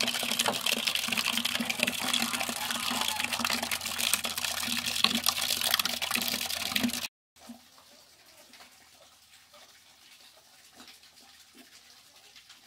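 Stream of water from a hydraulic ram pump's delivery line splashing steadily into a partly filled 20-litre plastic bucket as the pumped flow is measured. The splashing stops abruptly about seven seconds in, leaving only faint background sound.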